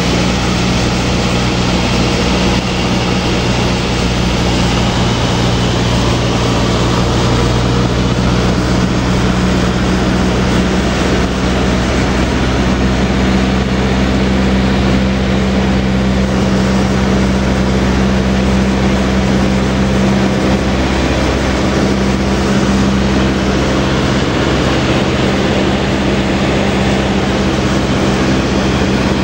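Cessna 152's four-cylinder Lycoming engine and propeller droning steadily in cruise, heard from inside the cabin with a constant rush of air noise; the engine note shifts slightly about a dozen seconds in.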